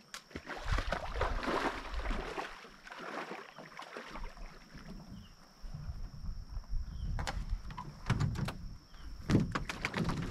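Footsteps wading and splashing through shallow lake water while a canoe is carried overhead, then several sharp knocks of the canoe hull as it is brought down onto the water near the end, over a low rumble.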